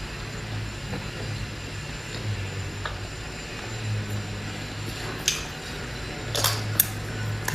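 Someone eating seafood: a few sharp clicks and a short crunchy noise, over a steady low hum.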